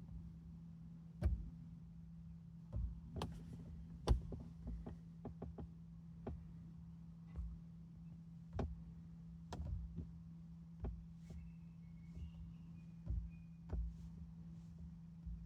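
A steady low hum with irregular sharp clicks and pops, about twenty over the stretch, some louder than others: the sound fault of a Sony 9500ES audio component.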